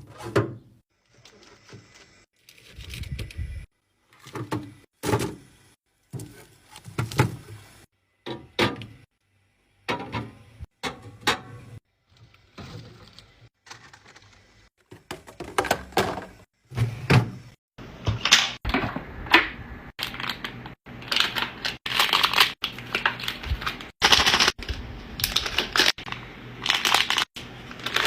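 Packaged snacks and drinks being handled and set into a fridge: a run of separate clacks and knocks of plastic and cardboard with some crinkling of wrappers, coming quicker and busier in the second half.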